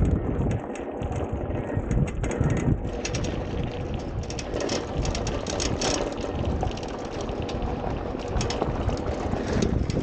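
Riding noise from an electric off-road scooter on a sandy dirt trail: wind buffeting the microphone and tyres rolling over the ground, with frequent small knocks and rattles as it bumps along.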